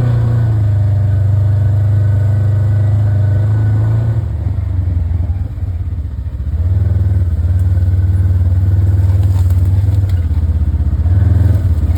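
Polaris RZR side-by-side's engine running as it drives along. It eases off briefly about four and a half seconds in, then picks back up about two seconds later.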